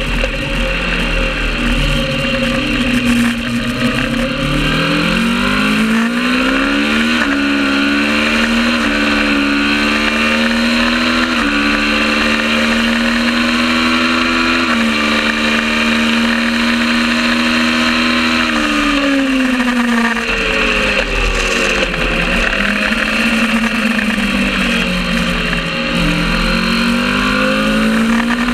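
Kawasaki ER650 parallel-twin race bike at full race pace: the engine note climbs, holds high for a long stretch with a few small steps in pitch, drops away about twenty seconds in as the bike slows, then climbs again near the end.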